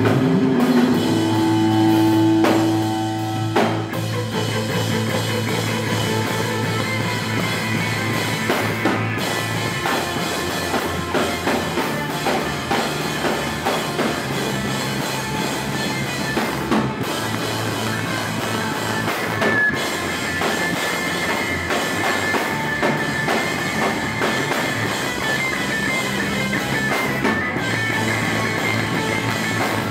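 Rock music with a drum kit and guitar playing steadily, opening with a few held notes over the first seconds.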